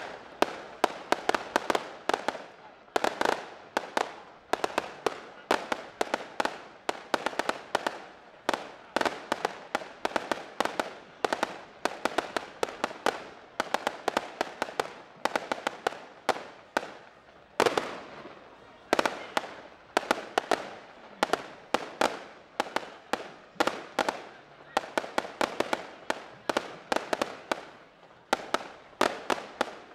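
Aerial fireworks going off in a rapid, continuous barrage of sharp bangs and crackles, several a second, with a short break just past halfway.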